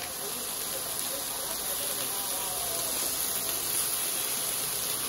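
A steady, even hiss that cuts in suddenly and holds level throughout.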